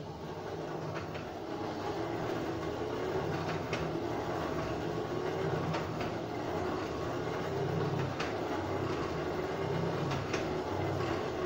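A blacksmith's forge running to reheat a copper rod for upsetting. It makes a continuous rushing noise with a low rumble that swells over the first couple of seconds and then holds steady.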